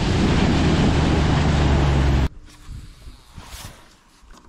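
Wind buffeting the microphone of a boat running across the lake, with the boat engine's low steady hum underneath. It cuts off abruptly about halfway through, leaving only faint quiet sounds.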